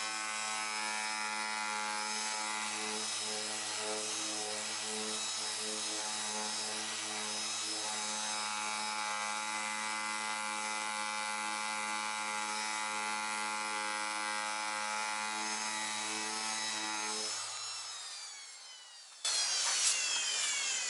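Electric random orbital sander running steadily, sanding paint and primer off a plastic car bumper. It winds down and stops near the end, and a louder, different whirring sound starts abruptly just after.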